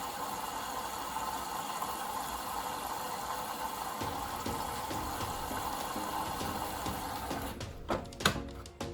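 Water running in a steady rush that stops about seven and a half seconds in, followed by a few sharp knocks.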